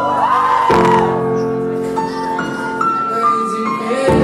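A song's keyboard intro playing through a club PA: sustained chords that change about a second in and again near the end, with a slow piano-like melody over them. Crowd voices are shouting during the first second.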